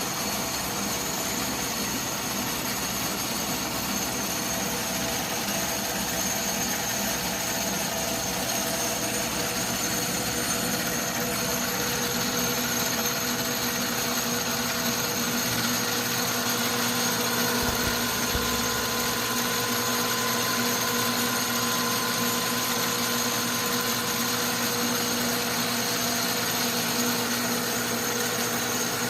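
Atlas metal lathe running steadily, motor and drive giving a constant hum with several steady whining tones, while aluminum is faced; the lower tones shift slightly about halfway through.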